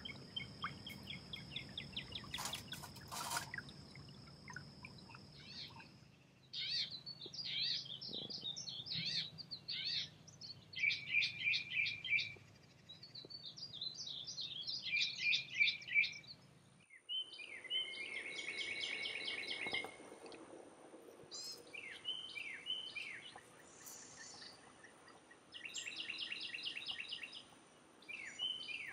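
Several songbirds singing and chirping outdoors, with quick trills and runs of rapidly repeated notes. The birdsong background changes abruptly twice, about six seconds in and again about seventeen seconds in.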